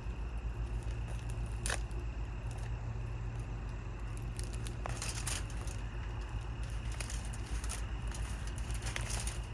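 Scattered clicks and crinkles of food packaging being cut open and handled by hand, over a steady low rumble.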